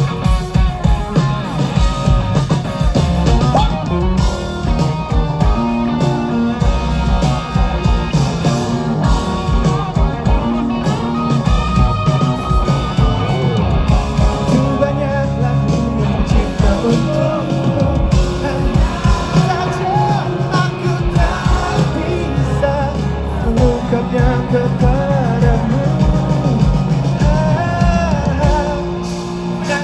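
A pop-rock band playing a song live with lead singing over electric guitar, bass and drums.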